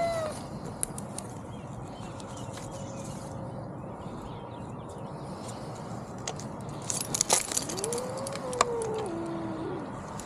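Cat stuck up a tree meowing: the end of one meow right at the start, then about eight seconds in a long drawn-out meow that rises, slides down and drops to a lower pitch before stopping. A quick cluster of clicks and rattles comes just before the long meow.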